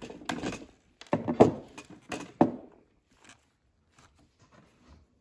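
Clunks and clicks of a pair of wire strippers being handled and squeezed on a lamp cord, three louder ones in the first two and a half seconds. After that come faint small ticks and rustles as the bare copper strands are worked by hand.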